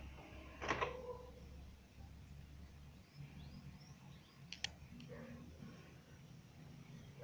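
CD mechanism of a Sony stereo system searching for the disc after the tray has closed: two faint clicks about a second in and near the middle, over a low hum.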